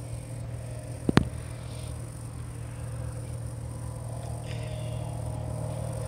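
A steady low hum with fainter higher tones above it, and two sharp clicks close together about a second in.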